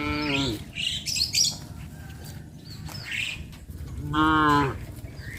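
Cows mooing: a short moo that falls in pitch right at the start, and a louder, longer one about four seconds in. Birds chirp in between.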